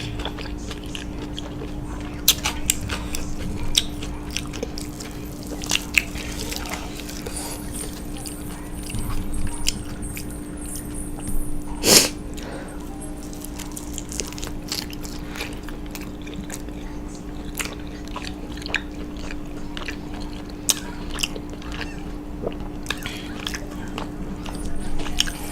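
Close-miked eating: chewing and biting into Chinese takeout food, with many short crunchy and wet mouth clicks, over a steady faint hum. One louder sharp sound comes about halfway through.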